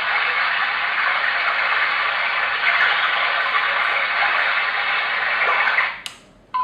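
Three Sheep S1 white noise machine playing one of its steady noise tracks, an even hiss through its small speaker. The noise cuts off suddenly about six seconds in, and a sharp click follows as the machine is switched to its next sound.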